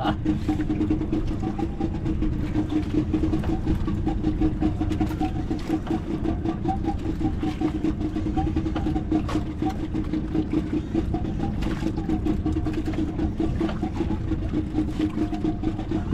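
Fishing boat's engine idling with a steady, unbroken drone.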